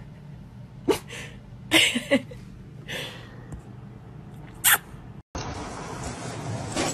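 A dog gives several short, sharp huffs, a second or so apart. About five seconds in, the sound cuts suddenly to a steady outdoor hiss.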